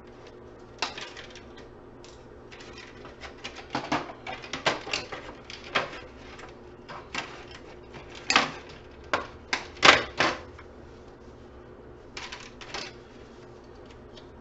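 Irregular clicks and clacks of wiring and parts being pulled and snipped out of an opened plastic UPS case with hand tools. The loudest knocks come about eight and ten seconds in.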